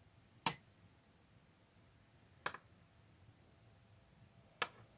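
Three sharp clicks about two seconds apart, of small hard curtain-rod hardware being handled, over faint room tone.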